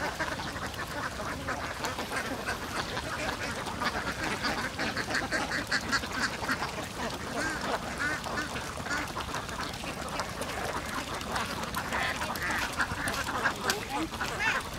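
A large flock of domestic ducks quacking, many calls overlapping in a continuous chatter.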